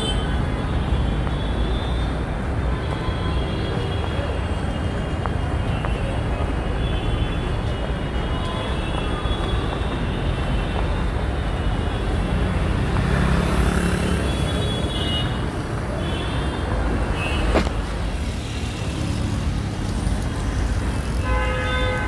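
Steady city street traffic noise with short car and motorbike horn toots sounding here and there, and one sharp click about three-quarters of the way through.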